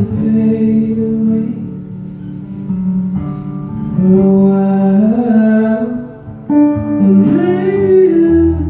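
Live song: a male voice singing over an electric guitar, with a brief drop in level about six seconds in.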